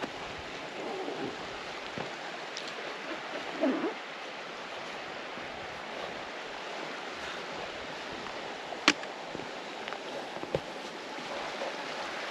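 Brook water rushing steadily, with a few sharp clicks, the loudest about nine seconds in.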